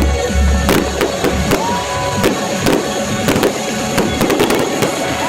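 Fireworks going off in quick, irregular bangs and crackles, with a short whistle about two seconds in, over music whose deep bass drops out about a second in.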